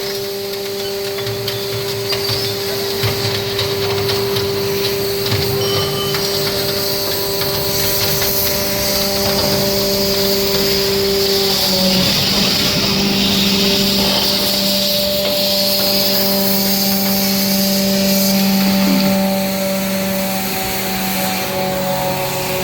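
Hydraulic scrap baling press running: a steady machine hum with a hiss. Its tone shifts about halfway through, and the hiss grows louder in the second half. Faint knocks of metal scrap come through now and then.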